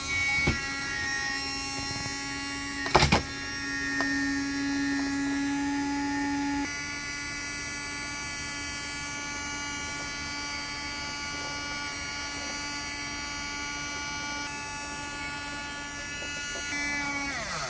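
Henry desktop mini vacuum cleaner running with a steady high motor whine while it sucks up debris. There are a couple of sharp knocks about half a second and three seconds in. Near the end the motor winds down with falling pitch as it is switched off.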